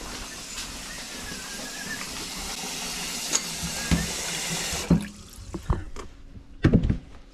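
Water running from a faucet into a sink as a steady hiss, shut off about five seconds in, followed by a few short knocks and clunks.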